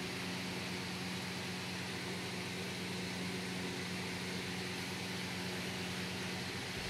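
Steady low hum over a constant hiss: room tone.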